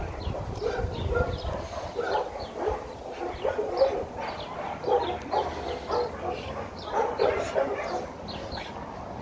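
Dog barks and yips, many short calls in quick, irregular succession.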